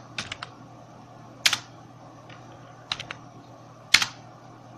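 Computer keyboard keys clicking in a few scattered strokes and short clusters, with the loudest stroke near the end. A low steady hum runs underneath.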